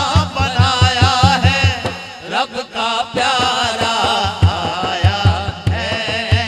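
A man's voice singing a naat through a microphone and loudspeakers, in a wavering, ornamented melody, over a low pulsing beat that drops out briefly about two seconds in.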